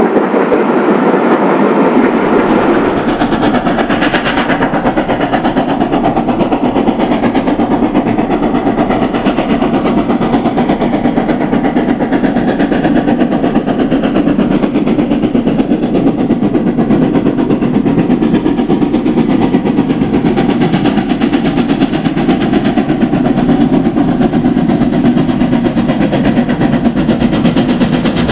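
Preserved main-line steam locomotive working hard up a steep gradient, a steady, loud, continuous exhaust with the rolling noise of the train.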